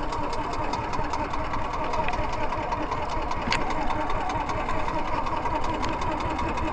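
Small engine of a motorized outrigger fishing boat running steadily underway, with a fast, even knocking beat.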